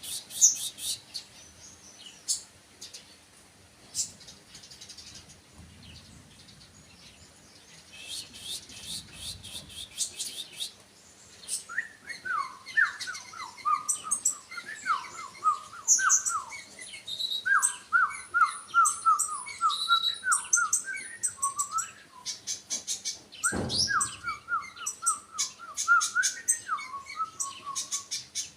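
Songbird singing: bursts of rapid, high chirping trills, then from about halfway a long run of short, down-slurred whistled notes mixed with high chirps. A single thump comes near the end.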